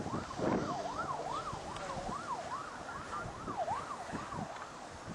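Emergency vehicle siren in a fast yelp, its pitch sweeping up and down about two to three times a second.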